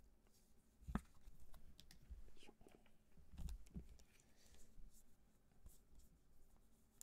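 Trading cards being handled on a tabletop: faint taps, clicks and rustles, with a low thump about a second in and another at about three and a half seconds.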